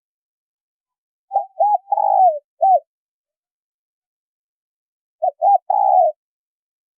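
Spotted dove cooing: two phrases a few seconds apart. The first is two short coos, a longer falling coo and a final short coo; the second is two short coos and a longer one.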